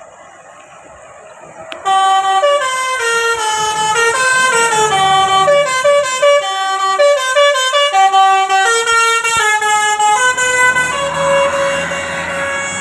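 Bus 'telolet basuri' musical air horn sounding loudly about two seconds in, playing a quick tune of stepped notes that ends on a longer held note.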